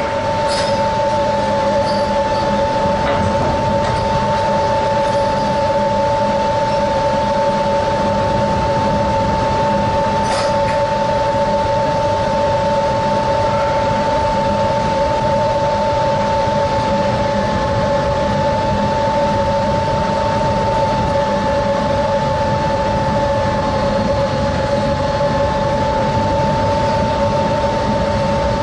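Fishing trawler's deck winches running steadily as the trawl is shot, a constant high two-note whine over a dense rumble and wash. A sharp click about half a second in and another around ten seconds.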